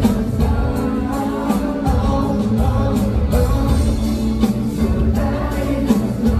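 Live concert music over an arena PA: a song with heavy, steady bass and a vocal line, recorded from the standing floor.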